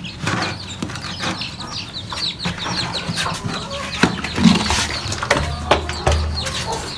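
Chickens with chicks: a busy run of short, high chirps falling in pitch, with occasional low clucks and scattered clicks.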